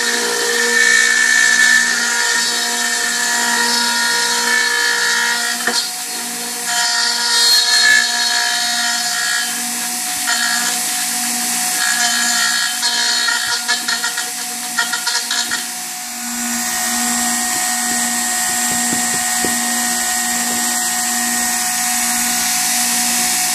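Router spinning a 1/4-inch cutter through aluminum plate: a steady motor whine with a rough, uneven cutting noise over it. About sixteen seconds in the cutting noise stops and the router runs on steadily with the cutter free of the metal.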